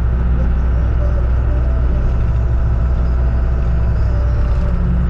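Steady low drone of a car driving along a paved road: engine and road noise.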